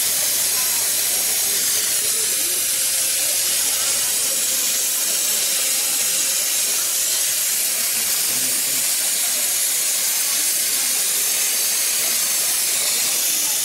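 Multiplaz 3500 steam-plasma torch burning with a steady, loud hiss while its flame plays on a metal pipe.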